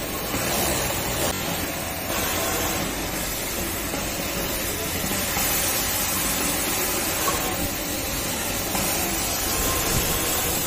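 Steady mechanical din of many industrial sewing machines running on a garment factory floor, with a Siruba 747 overlock machine stitching close by.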